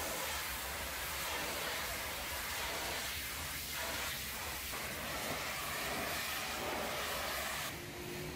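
High-pressure washer jet hissing steadily against the stainless-steel side of a tanker, with a low steady hum underneath. Near the end the spray sound drops a little and changes.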